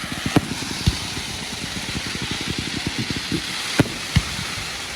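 Fireworks banging four times, in two pairs about half a second apart, one pair near the start and one near four seconds in. Under them runs a steady hiss and a rapid, low, engine-like rumble.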